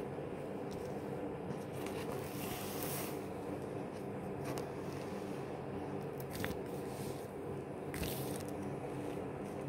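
Steady low hum in the room with a few faint clicks and scrapes, as a metal fork is picked up and handled at the table.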